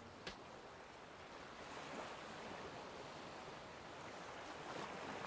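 Faint sea surf: a soft, even hiss of waves washing, swelling slightly a couple of times.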